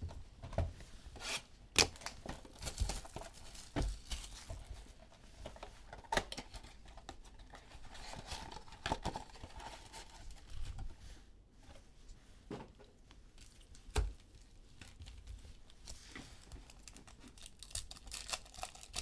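Trading card pack wrappers being torn open and crinkled while cards are handled, with a few sharp taps as things are set down.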